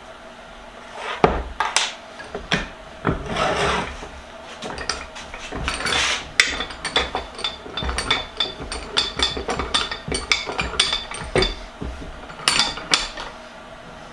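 Metal tools knocking, tapping and scraping on a cast-iron bench vise: irregular clanks with a couple of longer rasping scrapes and a faint metallic ring.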